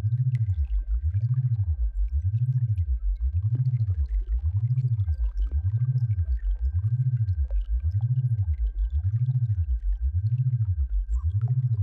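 Synthesized low tone for tinnitus sound therapy, gliding smoothly up and down in pitch about once a second without a break, with a faint steady high tone above it.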